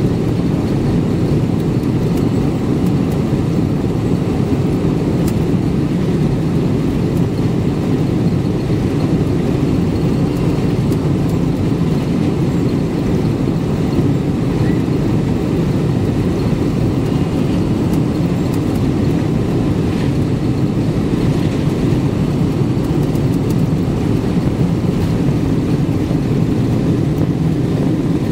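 Boeing 747-400 cabin noise during the takeoff roll: the four jet engines at takeoff power and the rumble of the wheels on the runway, heard as a loud, steady low rumble.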